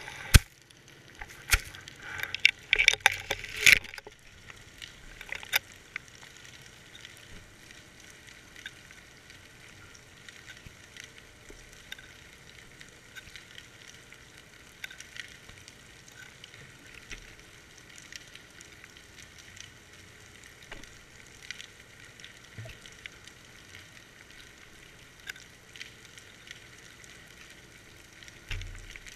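Underwater sound heard through a GoPro's waterproof housing hanging on a fishing line: a burst of loud clattering clicks in the first few seconds while the camera is moving, then a faint steady crackle with scattered small ticks.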